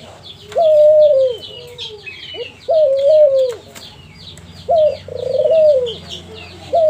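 Young white dove cooing repeatedly: four long coos about two seconds apart, each rising at the start and falling away at the end. Many short, high chirps from other birds run underneath.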